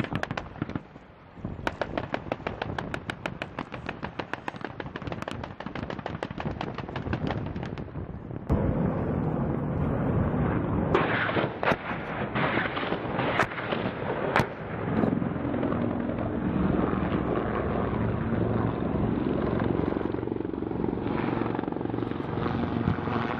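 Rapid automatic gunfire, a long run of evenly spaced shots, for the first several seconds. Then the steady rotor and engine noise of an AH-1Z Viper attack helicopter flying overhead, with a few separate sharp cracks over it.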